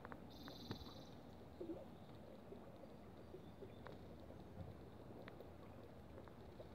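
Near silence: faint outdoor background with a few light ticks, and one brief high buzzing trill about half a second in.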